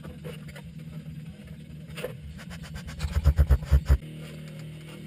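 Handling noise on a workbench: a quick cluster of dull low thumps and knocks about three seconds in, over a steady low hum.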